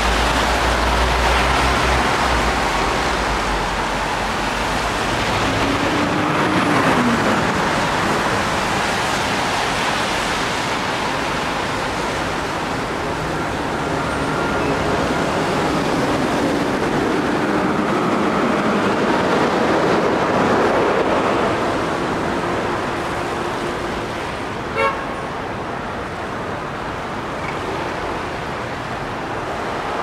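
City street traffic on a wet road: a steady hiss of tyres with passing car engines, and one short car horn beep near the end.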